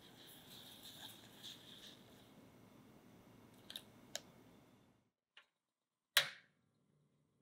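Granulated sugar pouring from a small bowl onto cut strawberries in an enamel saucepan: a soft hiss with light ticks for about two seconds, then a few small taps. About six seconds in comes a single sharp click as the portable gas stove's burner is turned on to ignite.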